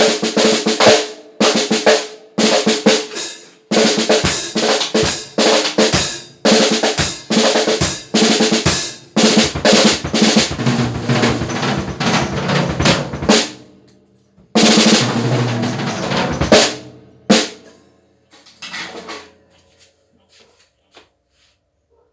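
Snare drum, fitted with new lugs, played with sticks in fast strokes and rolls, with short pauses between phrases and the drum ringing after the hits. The playing thins out to a few soft taps near the end.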